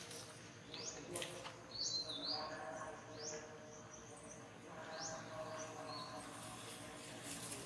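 Bird calling: short rising chirps repeated roughly once a second, over a steady outdoor background.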